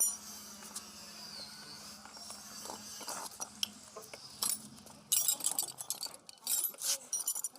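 Irregular metallic clinks and knocks, sparse at first and coming thick and fast in the second half, as metal parts are handled during hand-pump repair work.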